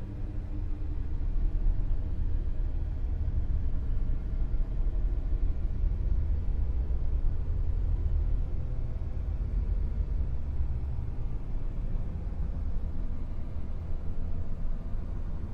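Dark, low rumbling noise drone, steady throughout, with its weight in the deep bass and only a faint hiss above.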